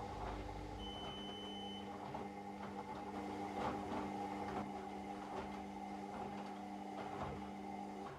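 Washing machine motor turning the drum with a steady hum and soft, irregular knocks of the tumbling laundry, cutting off abruptly at the very end as the drum stops.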